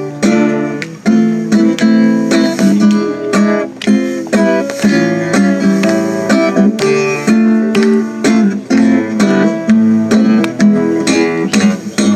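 Acoustic guitar strummed briskly in a steady rhythm, playing an instrumental passage between sung verses.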